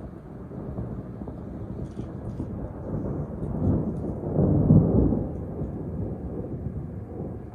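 Rolling rumble of thunder that builds, peaks about two-thirds of the way through, then trails off.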